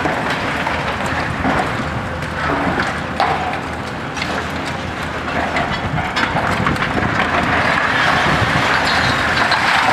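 Hitachi ZX870-3 high-reach demolition excavator at work: its diesel engine and hydraulics running steadily under a continuous noisy crunching of concrete being broken, with scattered sharp knocks and clatters of falling rubble.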